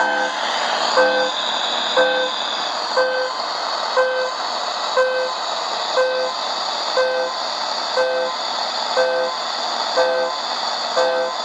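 Shortwave receiver's speaker giving a short pinging beep about once a second over steady static hiss.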